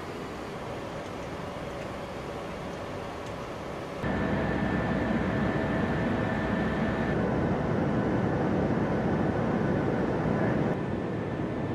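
Steady engine and airflow noise inside a P-8A Poseidon jet in flight. It jumps louder and deeper about four seconds in, with a faint steady whine, and drops back near the end.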